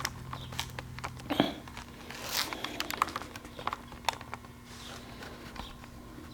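Scattered clicks, taps and rustling, as of things being handled and moved, busier in the first few seconds and thinning out later, over a steady low electrical hum.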